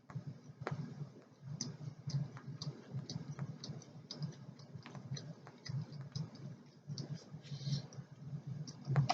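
Close-miked chewing of a bite of spicy chicken patty: a steady run of soft, wet mouth sounds and small clicks, about two to three chews a second.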